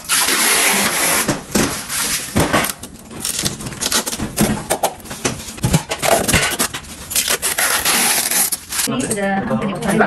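A saw cutting as an old built-in dishwasher is cut free: a harsh rasping noise in uneven strokes with short breaks, which stops near the end.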